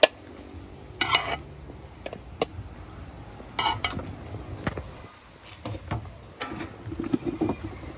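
Metal utensil clinking and scraping against a cooking pot: a sharp knock at the start, two short scrapes about one and three and a half seconds in, and a few lighter clicks.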